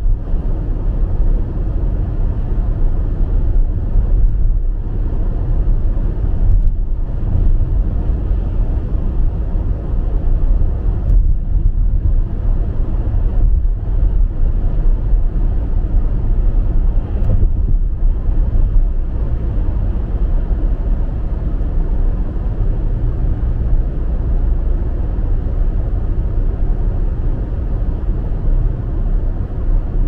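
Steady low rumble of a car driving at highway speed, heard inside the cabin: tyre and road noise on a slushy, snow-covered highway mixed with engine drone.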